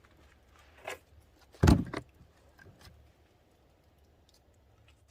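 A single heavy thump about a second and a half in, with a smaller knock and a few faint clicks and rattles around it.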